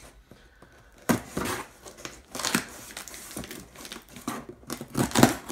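Scissors cutting through the packing tape on a cardboard box, in irregular scraping, tearing strokes that start about a second in.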